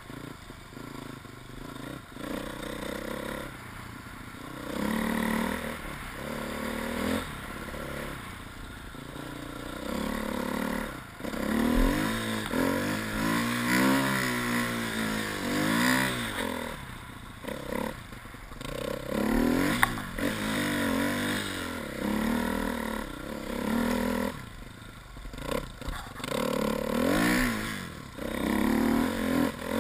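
Husqvarna TE 250 enduro motorcycle engine revving up and down again and again as the bike is ridden through snow, with a sharp knock about twenty seconds in.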